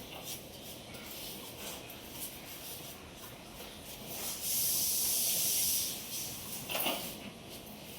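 Colouring strokes of a crayon or colour pencil scratching on paper, short and quick, with a louder steady hiss of strokes for about a second and a half in the middle.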